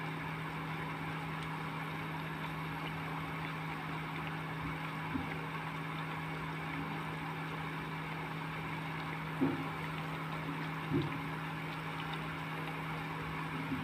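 Wheat-flour batter fritters deep-frying in hot oil, a steady sizzle, over the steady hum of an induction cooktop. A few light knocks come about 5, 9 and 11 seconds in.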